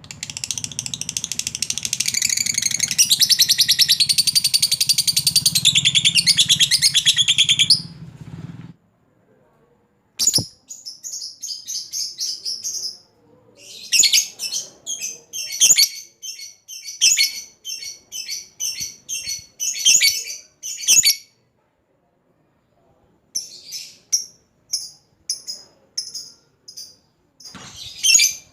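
Lovebird giving a long 'ngekek': a continuous, rapid, shrill chattering trill for about eight seconds, then after a short pause, series of short sharp chirps in quick bursts. It is the long ngekek call with which a lovebird calls out to a rival.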